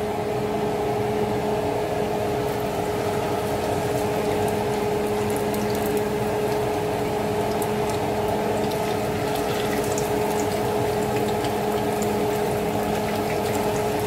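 Cooking oil sizzling and bubbling in a frying pan, the crackle picking up about halfway through as anchovy fritter batter goes into the hot oil. A steady machine hum runs underneath and is the loudest part.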